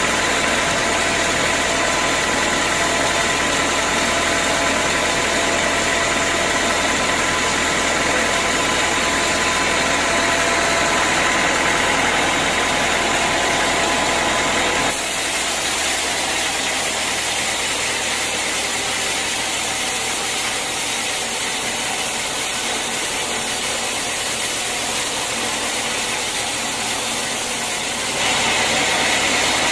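Sawmill machinery running steadily, a machine hum with steady high tones through it. The sound changes abruptly about halfway through and again near the end.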